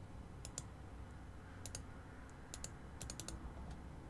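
Computer keyboard keys clicking in short, irregular groups of a few strokes, as someone types a search.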